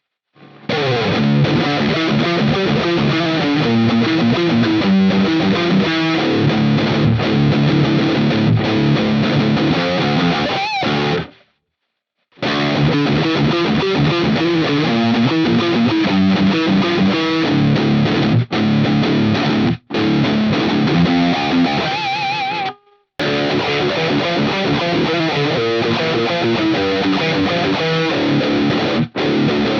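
1997 Korean-made Epiphone Les Paul electric guitar played through a distorted amp simulation with a compressor, running through dense riffs and chords. The playing stops twice, each time right after a held note shaken with vibrato.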